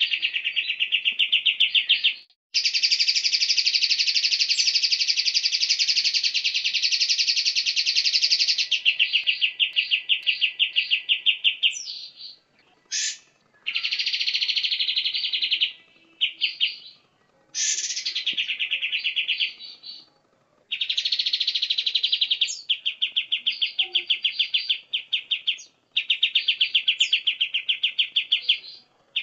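A songbird's very fast, high-pitched 'tembakan' trill, a machine-gun run of repeated notes. It sings in long phrases of several seconds, broken by short gaps and a few brief single calls.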